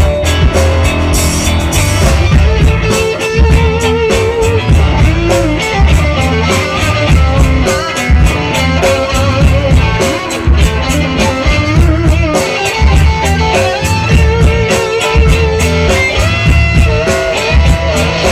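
Blues band playing live: an electric guitar lead with bent, wavering notes over bass and a steady drum beat.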